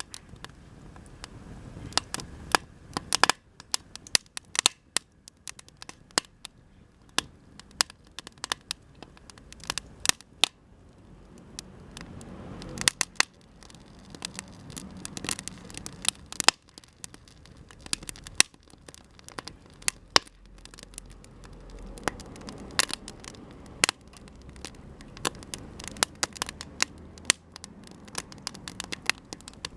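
Campfire of Japanese cedar (sugi) offcuts crackling and popping, with irregular sharp pops several times a second over a soft low rush of flame that swells and fades.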